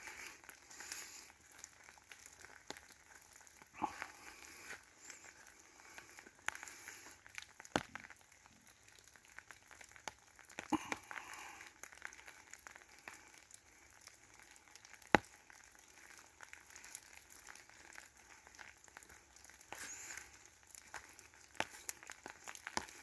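Faint, scattered crunching and crackling of dry leaf litter and twigs underfoot, with a few sharp snaps, the loudest about fifteen seconds in.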